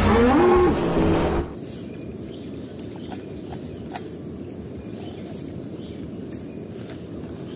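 For about a second and a half, an animated film soundtrack with pitched calls rising and falling over a low rumble, which cuts off abruptly. Then outdoor ambience: a steady background hiss with a high insect-like whine and a few faint short chirps and ticks.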